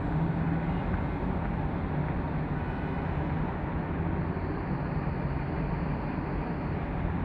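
Steady vehicle noise: an even rumble with a low hum running through it.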